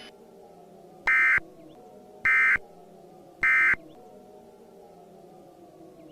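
Emergency Alert System end-of-message data: three short bursts of warbling two-tone digital data about a second apart, the 'NNNN' code that closes an EAS alert. A faint low droning music bed runs underneath.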